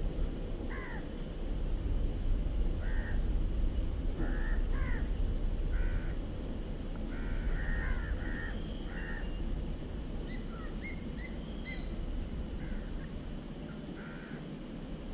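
Crows cawing repeatedly: short, harsh calls at irregular intervals, some coming in quick runs, over a steady low background rumble.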